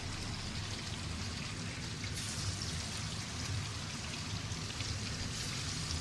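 Crumb-coated chicken pieces frying in hot oil: a steady crackling sizzle.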